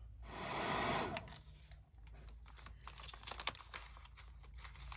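A hair dryer blowing for about the first second, then cutting off. After it, faint paper crinkling and small clicks as a paperclip is worked onto a stack of junk-mail pages.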